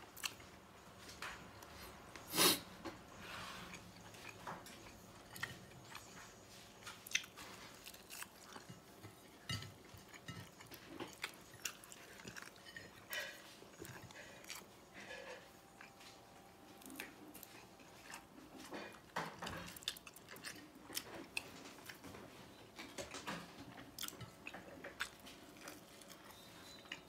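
A person chewing and biting food close to the microphone, with many small wet clicks and crunches. One sharp snap about two seconds in is the loudest sound.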